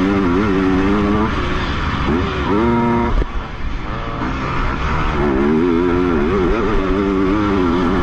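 Motocross bike engine at race pace, revs rising and falling under the rider's throttle over wind and dirt noise on a helmet camera. About three seconds in the revs climb sharply, then cut off as the throttle is closed, and they build back up from about five seconds.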